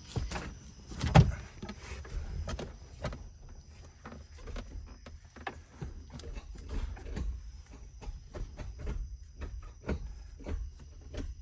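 Scattered short clicks and knocks of handling around a car, with one loud thump about a second in, over a steady high chirring of insects.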